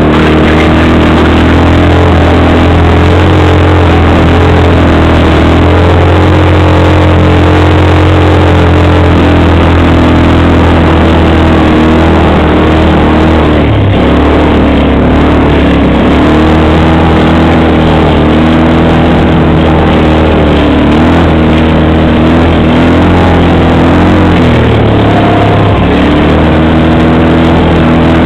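ATV (quad) engine running loud and close while riding, its pitch shifting with the throttle, with clear changes about halfway through and again near the end.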